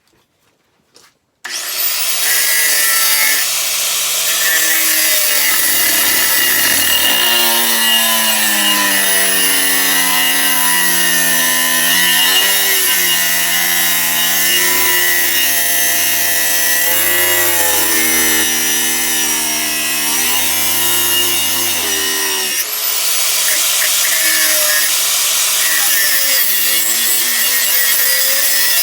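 A power tool cutting through the steel of a khopesh blade, starting about a second and a half in and running continuously, its pitch sagging and recovering as the cut loads it, with a brief dip about 22 seconds in.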